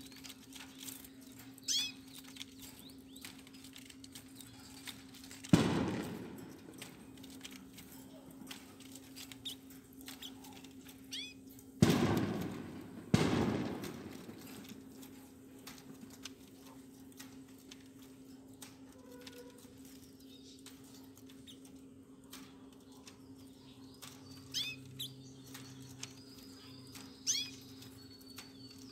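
Caged canaries giving a few short, scattered chirps, most of them near the end. Three loud knocks, each ringing out for about a second, come about five seconds in and twice near the middle, over a steady low hum.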